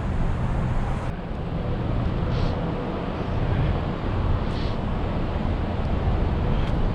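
Wind buffeting the action camera's microphone: a steady, low rumbling rush.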